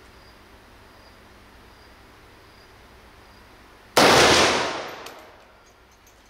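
A single loud, sharp bang about four seconds in, ringing out and fading over about a second and a half. Before it there is a faint steady background with a soft high chirp repeating about once a second.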